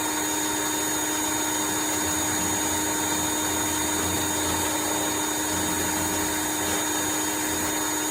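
Pressure washer running steadily with a constant motor-and-pump whine, its turbo nozzle spraying a jet of water.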